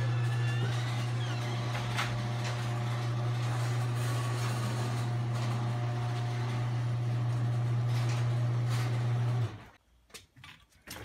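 A loud, steady low hum with a few faint clicks over it, cutting off abruptly about nine and a half seconds in.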